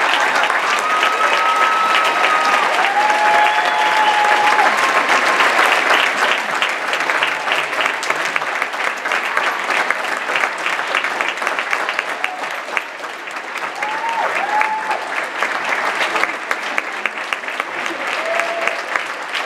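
Theatre audience applauding, with a few voices calling out over the clapping, easing off slightly partway through.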